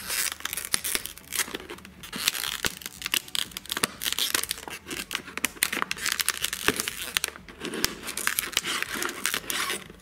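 Thin plastic water bottle crinkling and crackling as scissor points are pushed and twisted through its wall to poke a hole, a dense irregular run of sharp clicks and crackles.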